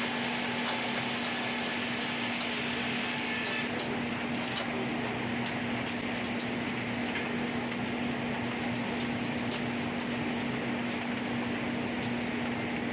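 LogRipper-300 scragg mill running steadily: a constant machine hum over an even rushing noise, with scattered light clicks and knocks.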